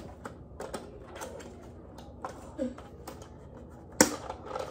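Handling noise from a large plastic dinosaur toy being handled, its jaw held open: scattered light clicks and knocks, with one sharper click near the end.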